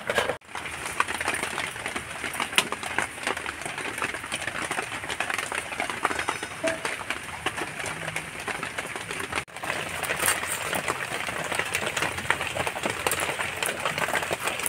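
Crab shells being cut and pulled apart on a boti blade: many small irregular clicks and crackles over a steady hiss, with two short breaks.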